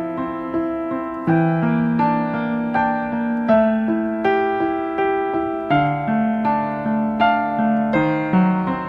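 Background piano music: a gentle melody of struck notes over a steady rhythm.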